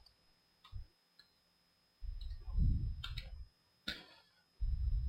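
A few scattered sharp clicks from operating the computer while modelling, with two low muffled noise swells about two seconds in and near the end.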